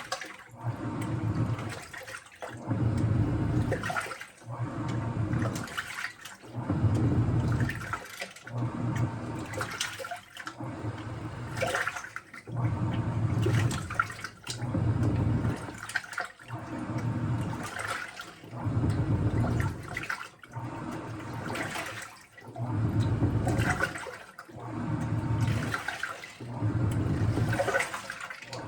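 Washing machine drum turning with water and wet laundry sloshing inside, in regular surges about every two seconds.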